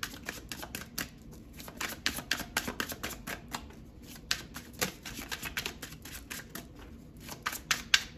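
A tarot deck being shuffled by hand: a quick, uneven run of crisp card clicks, several a second.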